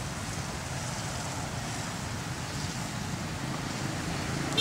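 Steady outdoor background noise: a low rumble with a fainter hiss, and no distinct event.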